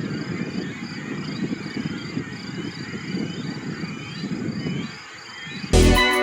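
Outdoor wetland ambience: a low rumbling noise under a series of repeated short, high-pitched animal calls. Music comes in near the end.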